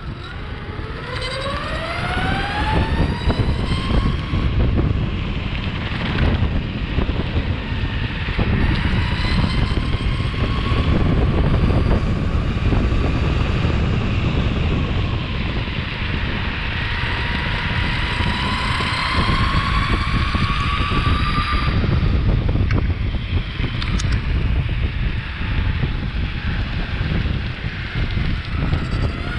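Meepo Hurricane electric longboard's motors whining under power, rising in pitch as the board speeds up in the first few seconds, then holding with gentle rises and dips. Under the whine is a steady rough rumble of the wheels rolling over the trail's cracked pavement.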